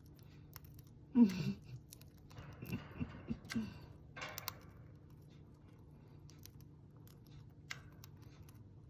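A small pet crunching its food: a scatter of small, crisp clicks and crackles, like a crackling campfire. A short voice-like sound falls in pitch about a second in, with a few more brief pitched sounds around three seconds.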